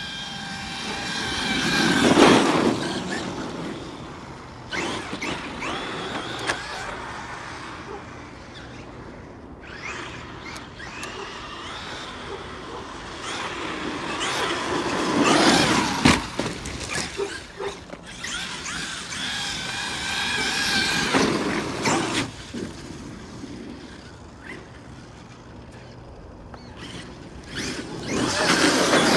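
Traxxas X-Maxx 8S RC monster truck's brushless motor and drivetrain whining in several bursts of hard acceleration. The loudest burst comes about two seconds in, with others around the middle and near the end, and quieter running in between.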